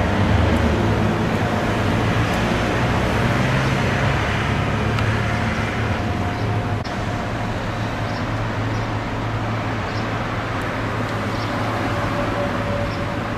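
Steady street traffic noise: a continuous hum of vehicles.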